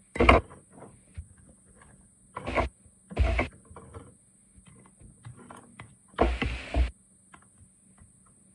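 Kitchen handling noise from utensils and containers being worked on the counter: four short loud bursts with light clicks scattered between them.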